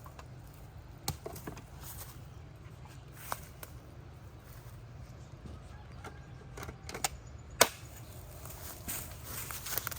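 A few scattered sharp clicks and knocks over a low steady background rumble, the loudest about three quarters of the way through.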